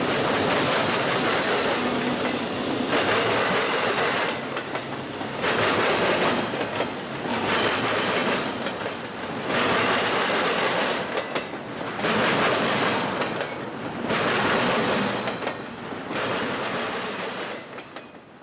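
Double-stack container freight train passing close by, its steel wheels rolling and clattering over the rail. The noise swells and eases about every two seconds as the cars go by, and drops away near the end.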